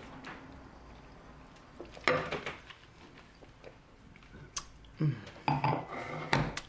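A woman tasting white wine from a stemmed glass: light knocks and clinks of the glass on a wooden table, with short wordless vocal sounds about two seconds in and again near the end.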